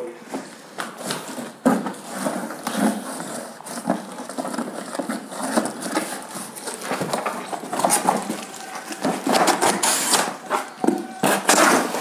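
A large cardboard shipping box being handled and opened by hand: irregular rustling and scraping of cardboard with scattered knocks.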